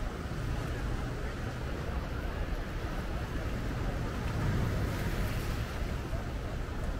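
Beach ambience: a steady wash of ocean surf with the indistinct chatter of people in the background.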